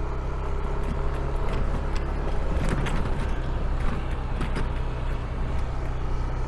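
Steady low rumble of a vehicle engine, with a few faint clicks.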